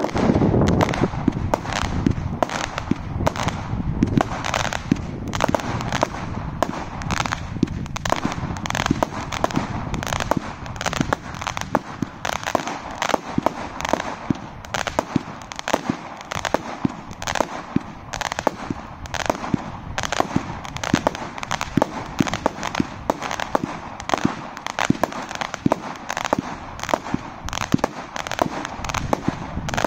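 Brothers Pyrotechnics Crazy Mini, a 100-shot firework cake, firing continuously. It is a rapid, unbroken string of shots and small aerial bursts, several a second.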